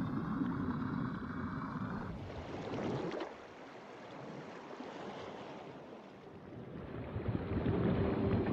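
Water rushing and churning around a small submersible as it moves through the water and breaks the surface. The rush swells about two seconds in, drops away suddenly a second later, and builds again near the end.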